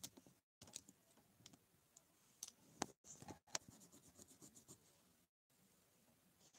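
Near silence with a handful of faint, short clicks and taps scattered through the first few seconds.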